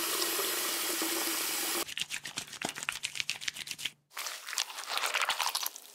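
Water running steadily from a tap, changing about two seconds in to irregular splashing as hands are washed under it, with a short break about four seconds in.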